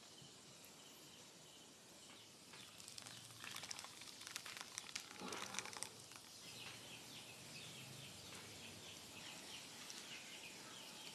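Faint outdoor ambience: a stretch of crackling a few seconds in, then a run of quick repeated bird chirps, about four a second.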